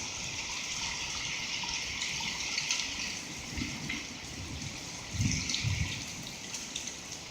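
Steady heavy rain pouring down, mixed with a few faint ticks of small hail. A brief low rumble comes about five seconds in.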